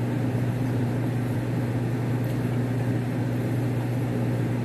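A steady low machine hum, constant and unchanging, like a room appliance or fan running.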